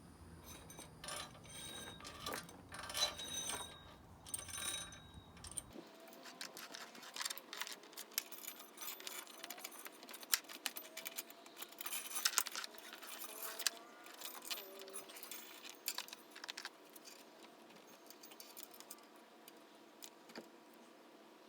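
Mini bike roller chain clinking and rattling as it is handled and fitted for measuring, in irregular metallic clicks.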